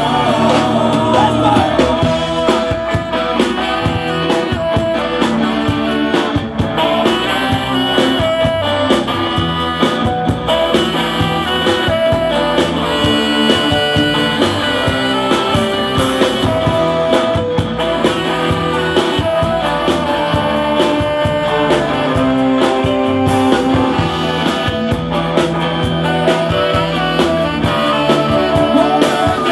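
Blues-rock band playing live through a stage PA: electric guitars, bass and drums with saxophone, and a lead vocal.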